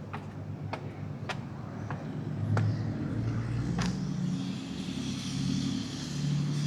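Footsteps clicking at a steady walking pace for the first few seconds, with a car going by: its engine and tyre hiss grow louder from about the middle.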